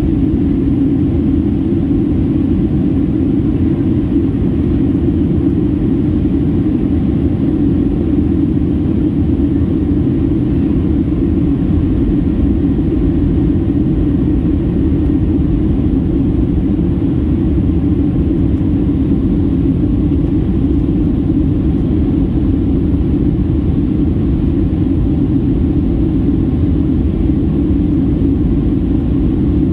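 Steady in-cabin rumble of a Boeing 737-800 in descent: its CFM56-7B engines and the airflow over the fuselage make an even, low rumble that holds unchanged.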